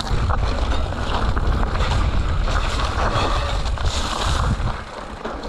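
Wind rumbling over a GoPro's microphone while a mountain bike is ridden along a trail, with a steady rush of trail noise.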